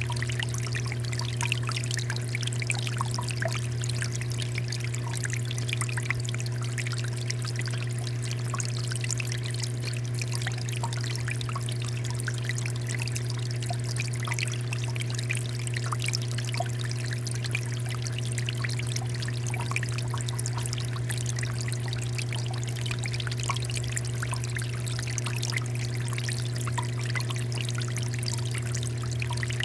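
Small indoor water fountain running: water trickling and splashing steadily over a steady low hum.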